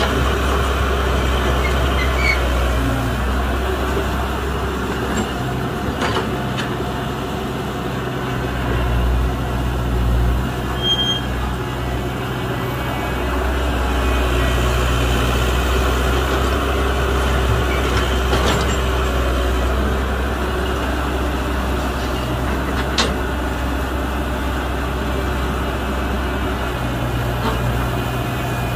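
Heavy diesel engines of an excavator and dump truck running with a steady deep drone, with a few short knocks.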